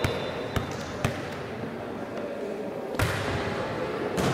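A volleyball being hit and bouncing in a large gym: a handful of sharp slaps with echo, three in the first second and more about three seconds in.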